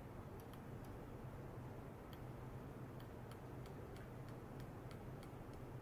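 Faint, irregular high ticks, about two to three a second, over a steady low hum.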